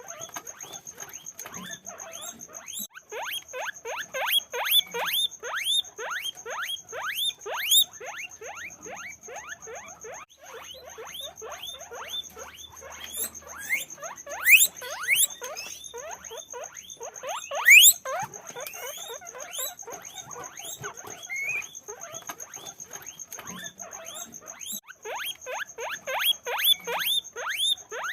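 Guinea pigs squeaking in a fast run of short upward chirps, with two louder, long rising squeals about halfway through. A steady high-pitched whine runs underneath.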